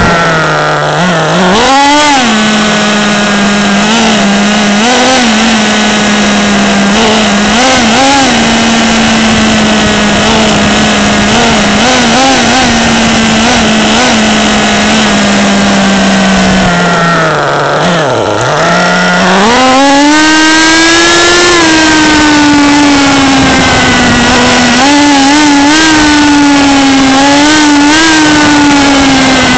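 Small engine of a CEN MT 3.0 RC truck running at a steady pitch with frequent short revs. The pitch drops sharply about 18 seconds in, then climbs higher and holds there with more brief revs.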